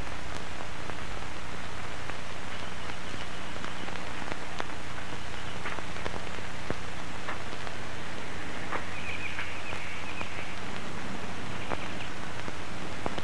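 Steady hiss with a low hum underneath and a few faint scattered ticks, with no speech.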